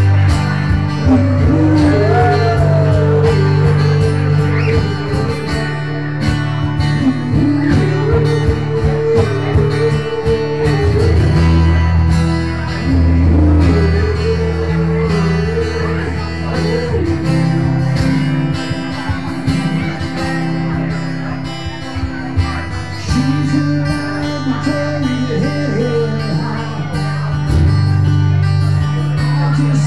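Live acoustic guitar music, amplified through a PA, with chords held over a strong low bass line that changes every few seconds.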